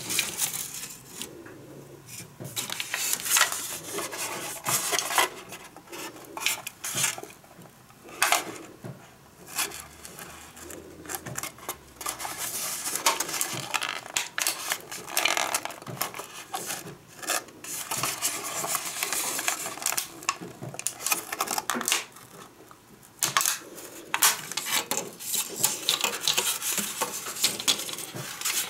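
Thin plastic mould tray crackling and clicking as hardened candy fish are pried out of it and lifted by their string, in irregular bursts of small clicks.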